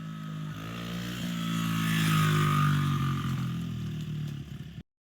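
Small dirt bike engine running, growing louder to a peak about two seconds in and then easing off, before the sound cuts off suddenly near the end.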